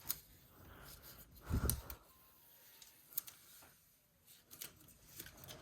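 Protective plastic film being peeled off by hand: faint crinkles and scattered small clicks, with a soft handling thump about a second and a half in.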